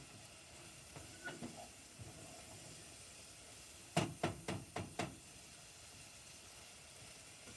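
Food frying in a pot on a gas stove with a faint, steady sizzle. A few light stirring knocks come about a second in, then a quick run of five sharp clacks of utensils against cookware about four seconds in.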